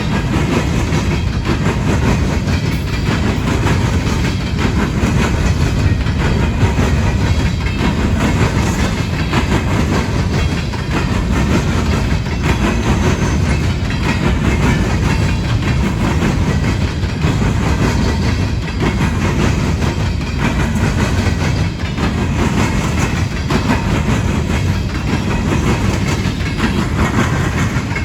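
Coal cars of a CSX freight train rolling past over a railroad crossing diamond, steel wheels clattering over the rail gaps against a steady low rumble.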